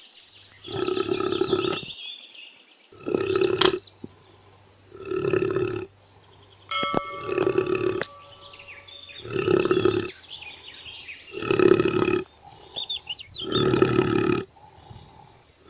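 Young water buffalo breathing with snoring grunts, one about every two seconds: the laboured breathing of haemorrhagic septicaemia, where fluid in the lungs blocks the airway as the animal breathes.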